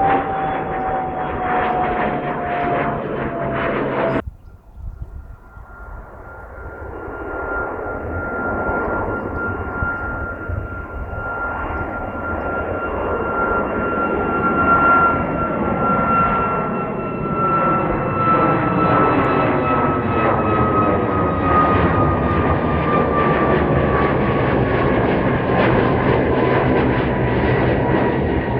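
Jet aircraft engines with a whine falling in pitch, cut off abruptly about four seconds in. A jet's engine noise then builds from faint to loud and holds, its high whine slowly sinking in pitch as the aircraft passes.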